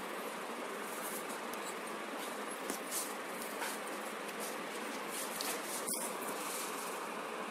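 Steady background hiss with a few faint, scattered clicks.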